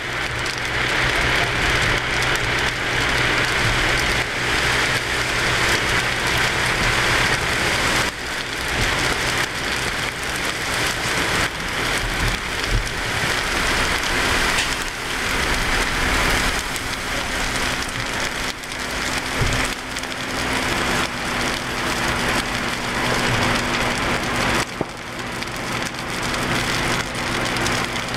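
Wildfire burning through conifer forest: a dense, continuous crackling and popping of burning brush and trees. A steady low hum runs underneath.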